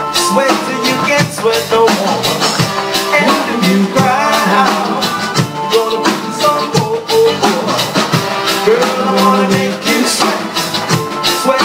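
Live band playing an upbeat song with a steady drum-kit beat, shaker-like percussion and a melodic lead line.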